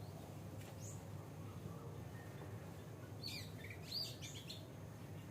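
Oriental magpie robin singing: a faint high note about a second in, then a quick phrase of varied, rapidly changing whistled notes about three seconds in.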